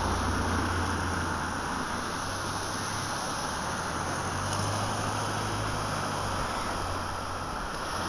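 Steady wash of sea surf, with wind rumbling on the microphone.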